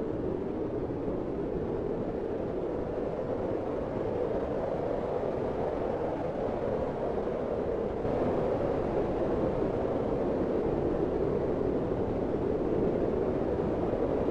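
Cold wind blowing steadily with a soft, hollow rushing tone, swelling gently and growing a little louder about eight seconds in.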